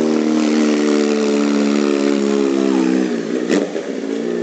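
Sport bike engine held at high revs during a burnout, with a rushing noise across the top of the sound; about three seconds in the revs drop, and a sharp click follows.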